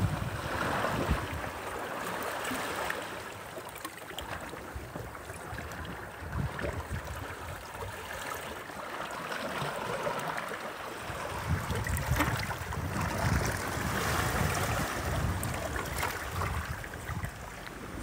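Sea waves washing against the shore, coming in irregular swells every few seconds under a steady hiss of water.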